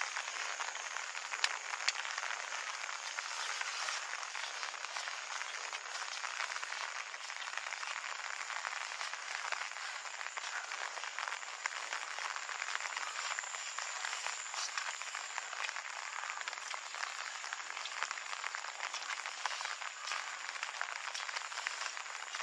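Steady rain falling, an even hiss made of many small drop ticks.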